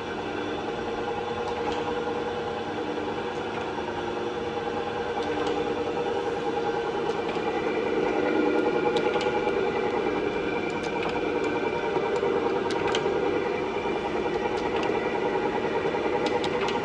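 Jones and Shipman 1300 cylindrical grinder running: a steady machine hum made of several held tones, with scattered short sharp ticks from about halfway through.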